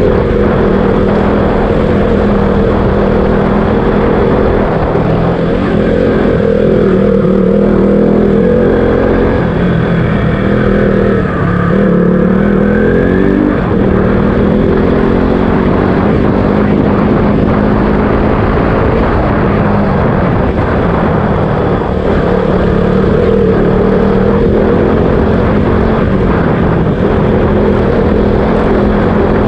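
KTM RC200's single-cylinder engine running while being ridden, its pitch steady for long stretches and dipping then climbing again about twelve seconds in as the throttle changes.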